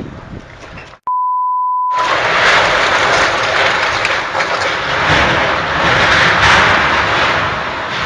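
About a second in, a flat, steady bleep tone replaces the sound for about a second. Then strong wind rushes loudly and buffets the microphone, surging in gusts.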